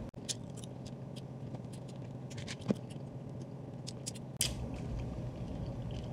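Sunflower seeds being eaten from a plastic bottle: scattered sharp clicks and crackles as the seeds rattle in the bottle and the shells are cracked between the teeth, with one louder click about four seconds in.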